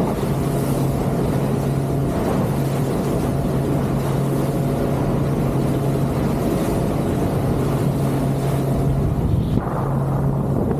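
A 25-foot Boston Whaler motorboat running at speed: a steady low engine hum under a constant rush of wind and water.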